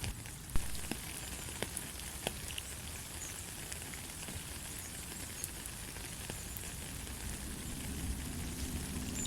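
Steady rain, an even hiss with scattered close drops ticking on a surface, one louder tap about half a second in.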